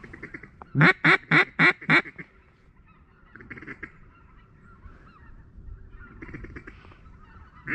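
Hand-held duck call blown close by: a loud run of five quacks about four a second, about a second in, then softer single quacks around the middle and again near the end, calling to ducks overhead. The calling has a honking, goose-like tone.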